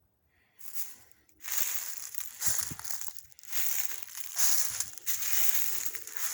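Footsteps crunching through dry leaf litter, coming in surges about once a second, with a couple of dull low thuds as feet land.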